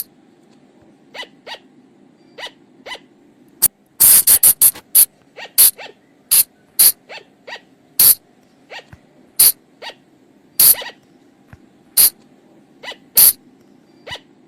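Colugo (Sunda flying lemur) calls: brief, sharp, high calls, mostly single and about a second apart. A quick run of about seven comes around four seconds in, and another run starts near the end, over a faint steady hum.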